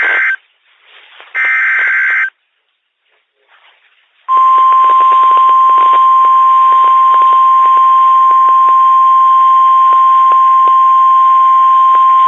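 NOAA Weather Radio Emergency Alert System alert: the last two of the three short, buzzy SAME digital header bursts, about two seconds of near silence, then the loud, steady single-pitch 1050 Hz warning alarm tone starting about four seconds in, over radio static and crackle. The alarm tone signals that a new warning, here a tornado warning, is about to be read.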